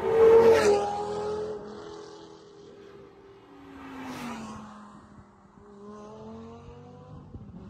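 Two Lamborghini Gallardo Spyders drive past one after the other, each V10 engine dropping in pitch as the car goes by. The first pass, right at the start, is the loudest. Near the end an engine note rises again.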